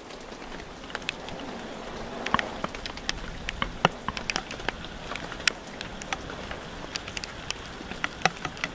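Rain drops hitting right at the camera in irregular sharp ticks, over a steady hiss of wind and rain.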